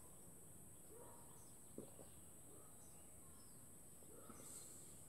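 Near silence: faint background noise with a few faint chirps and one soft click about two seconds in.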